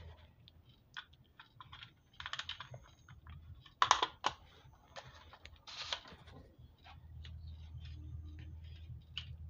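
Plastic clicks and clatter of multimeter cases and circuit boards being handled and set down on a table, the loudest knocks about four and six seconds in.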